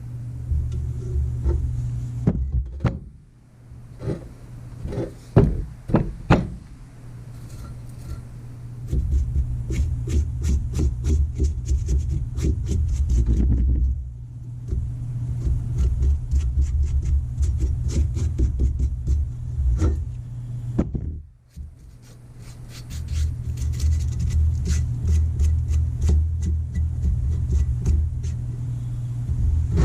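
Mechanical working of a rusted, seized arbor press: a few loud knocks in the first seconds, then long runs of rapid clicking over a low rumble, with a steady low hum underneath.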